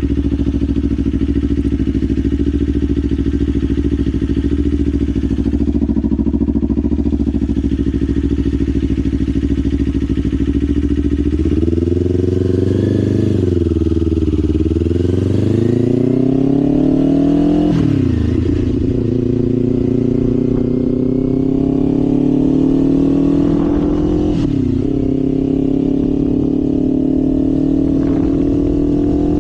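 Kawasaki Ninja 500's parallel-twin engine holding a steady low note for about eleven seconds, then pulling away: the revs climb, fall sharply at an upshift about 18 seconds in, climb again, and fall at a second upshift near 25 seconds before rising once more.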